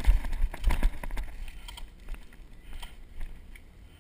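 Running footsteps on dirt and grass, about three a second, with thumps and rumble on the camera, slowing and stopping about a second in. After that, only faint knocks and rustling.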